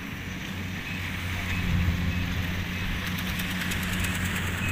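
Kubota DC-70 combine harvester's diesel engine running steadily with a low hum while harvesting rice. A fast, fine high ticking joins in about three seconds in.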